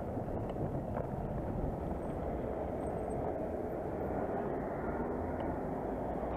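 Steady rumble of city road traffic, mixed with the noise of a bicycle rolling over rough dirt ground, with a few light clicks.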